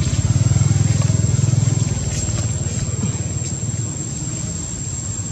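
Low, steady engine rumble, like a motor vehicle idling, loudest in the first couple of seconds and then easing off slightly, with a thin, steady high whine above it.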